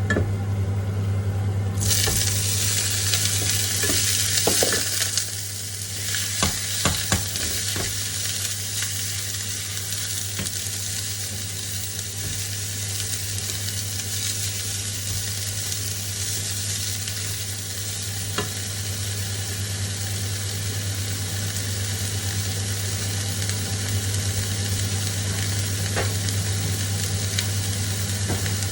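Food sizzling as it fries in oil in a pan and is stirred. A utensil knocks against the pan a few times about five to seven seconds in. The sizzle grows louder about two seconds in, over a steady low hum.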